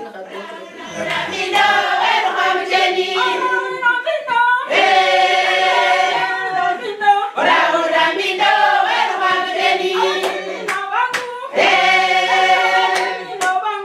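A group singing together in chorus, with hand claps among the singing. The song comes in phrases, with short breaks about four and a half seconds and eleven and a half seconds in.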